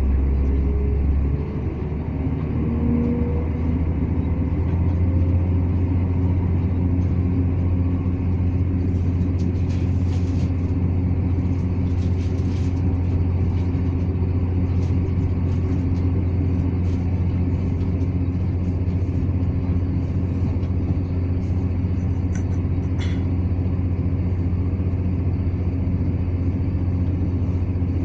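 Interior sound of a ScotRail Class 170 Turbostar diesel multiple unit running at speed: a steady low hum from its underfloor diesel engine and transmission, with wheels running on the rails. The low engine note steps up about a second and a half in, and a few faint ticks come through later.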